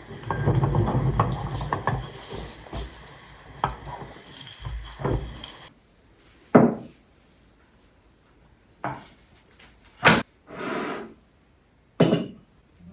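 Kitchen handling sounds while breakfast is made: a dense run of clatters and knocks of dishes and utensils on a wooden surface, then, after an abrupt drop in background about six seconds in, a few separate knocks and taps spaced a second or two apart.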